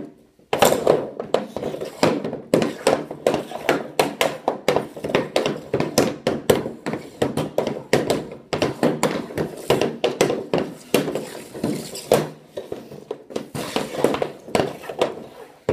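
Hockey stick blade and pucks clacking on a plastic synthetic-ice surface: a long run of rapid knocks and taps, several a second, from stickhandling and pushing pucks around.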